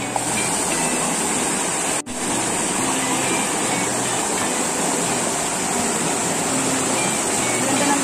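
Steady rush of a waterfall, with faint background music under it; the sound drops out for an instant about two seconds in.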